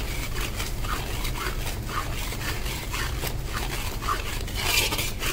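Metal spatula stirring and scraping thick khoa against the bottom of a metal kadhai as it roasts in ghee. There is a soft scrape about twice a second, with one louder scrape near the end.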